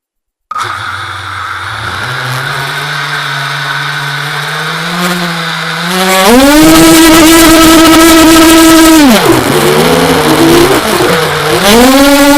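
GB-X210 5-inch quadcopter's brushless motors and propellers starting about half a second in with a low hum at idle throttle. About six seconds in, the throttle goes up to a loud steady whine. The pitch drops back for a couple of seconds and then climbs again near the end.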